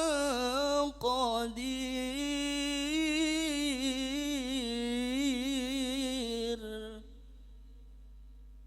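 Unaccompanied Quran recitation in melodic tilawah style, with no added effects: one voice draws out the verse's last word "qadir" in a long, ornamented, wavering melisma. It ends about seven seconds in, leaving only a faint hum.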